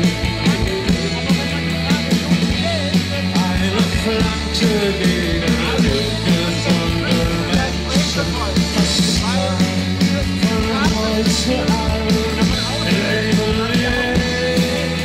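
Loud rock music with singing: a band playing with a steady beat and a heavy bass line.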